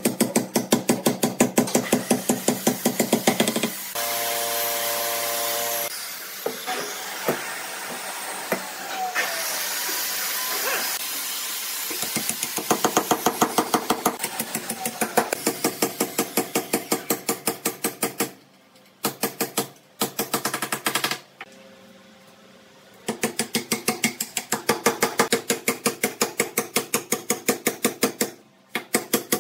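A hammer striking rapidly and evenly, about five or six blows a second, in several runs separated by pauses. A brief steady hum is heard about four seconds in.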